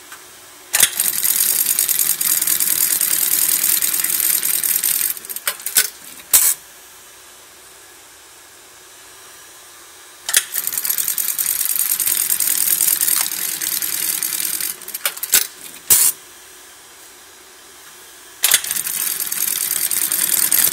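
Mitsubishi programmable industrial bar tack sewing machine stitching bar tacks through layered canvas: a run of rapid stitching lasting about four seconds, ending in a few sharp clicks. It stops, then a second run follows the same pattern, and a third starts near the end.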